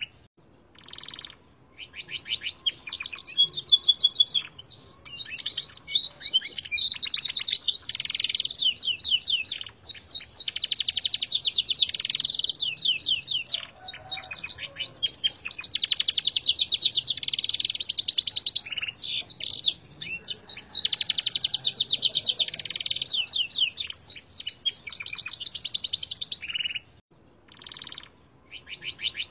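Gloster canary singing, its song learned from red siskin recordings. It sings long runs of fast, high trills and sweeping notes almost without a break. The song starts about two seconds in and pauses briefly near the end.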